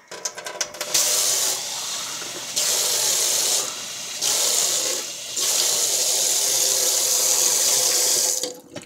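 Tap water running into a stainless steel sink while a cup is filled, after a few handling clicks at the start. The stream's sound shifts louder and softer several times, then the tap shuts off a little before the end.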